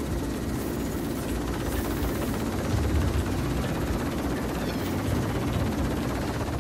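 Mi-38 twin-turboshaft helicopter hovering low, its main rotor and engines making a steady, deep beating noise that swells slightly about three seconds in.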